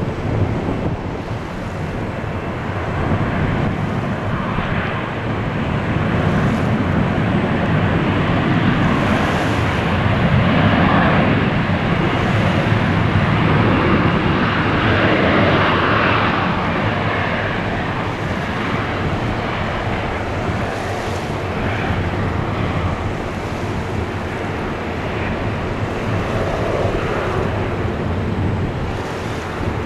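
Jet engines of an Airbus A330-202, twin General Electric CF6-80E1 turbofans, running during the takeoff roll. They make a steady, noisy rumble that grows louder over the first ten seconds or so.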